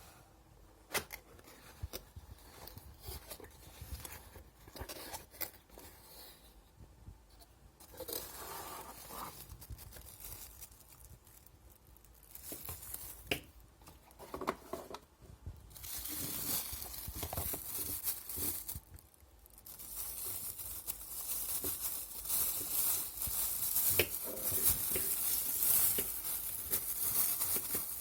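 Close handling noise of a cheap spinning fishing reel: scattered clicks in the first half, then from about halfway a steady scratchy rustle with further clicks.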